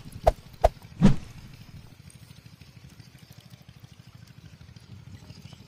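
Three sharp clicks within the first second, then faint trickling and dripping of water from a wet cast net being picked over in shallow water.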